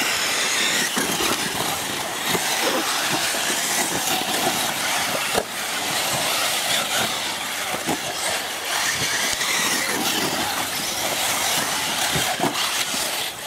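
Several radio-controlled race cars running together around a track, their motors making a loud, continuous high-pitched whine.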